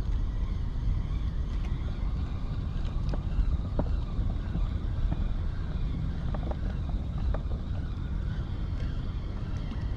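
Wind buffeting the microphone as a steady low rumble, with a few faint ticks from a spinning reel as its handle is wound to retrieve the line.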